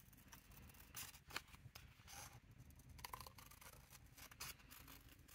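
Scissors snipping through book-page paper, trimming it around a cardboard heart: faint, irregular snips.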